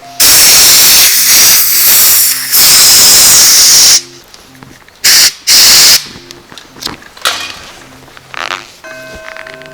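Loud hissing of a pressurized gas jet: one long blast of about four seconds, then two short blasts a second or so later. Faint background music with a repeating bass pattern plays underneath.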